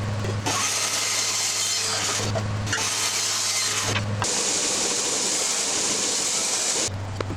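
Bandsaw cutting a segmented wooden bowl in half: a steady hiss of the blade in the wood over the motor's low hum, broken by a couple of brief gaps. A little over four seconds in it changes to an edge sander's belt sanding the wood.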